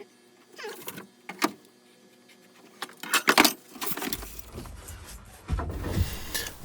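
A few scattered light knocks and clinks, then a low rumbling noise from about four seconds in that grows louder toward the end.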